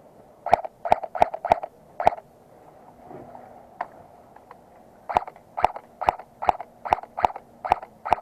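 Airsoft gun firing single shots, each a sharp crack with a short ring. Five come in quick succession, then one alone, then a steady run of about two shots a second.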